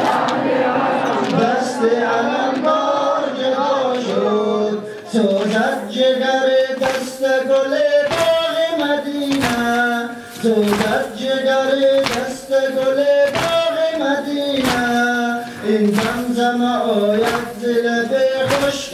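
A noha, a Shia mourning lament, sung in long held phrases. From about six seconds in it is joined by sharp strikes about once a second in time with it, as the mourners beat their chests (sineh-zani).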